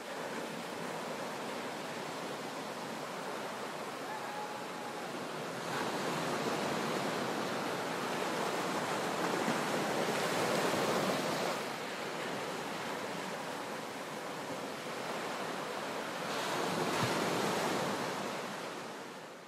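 Sea waves surging and crashing into a sea cave: a dense rush of surf that swells louder about six seconds in and again near the end, then fades away.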